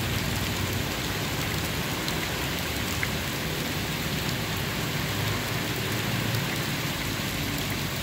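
Steady rain pouring onto wet pavement and puddles, an even hiss of splashing drops with faint ticks of single drops.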